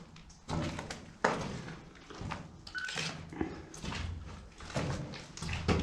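Irregular scuffs, knocks and scrapes of people moving through an underground air raid shelter tunnel, with a brief squeak about three seconds in.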